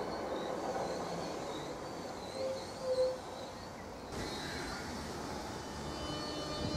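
Class 466 Networker electric train drawing slowly into the platform, its running noise growing into a rising hiss about four seconds in and steady whining tones near the end. Two short low hoots about halfway through are the loudest sounds.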